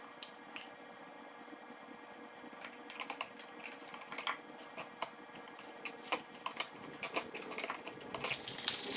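Irregular light metallic clicks and clinks of hand tools and engine parts being handled, sparse at first and coming thicker from a few seconds in.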